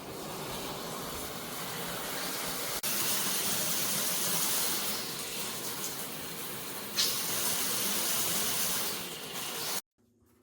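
Water spraying from a shower head: a steady, dense hiss of falling water that gets louder about three seconds in and cuts off abruptly near the end.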